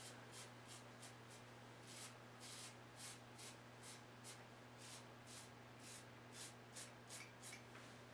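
Faint, short scrapes of a Gillette New Improved safety razor with a century-old blade drawn across lathered stubble, a couple of strokes a second, over a steady low hum.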